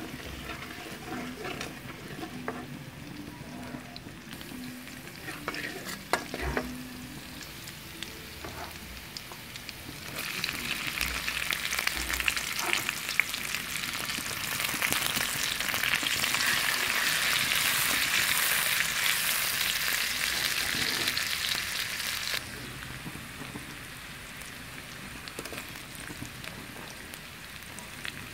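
Garlic, onion and ginger sizzling in hot oil in a wok, stirred and scraped with a metal spatula. The sizzling grows louder about ten seconds in and drops back suddenly a few seconds before the end.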